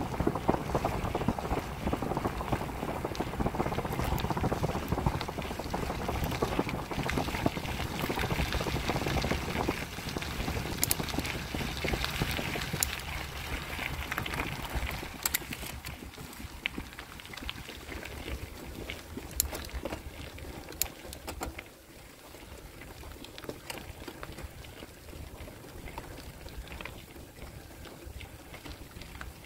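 Bicycle tyres rolling on a wet dirt and gravel road, a steady gritty, splashy hiss with scattered sharp clicks from the bike and grit. It grows quieter from about halfway through.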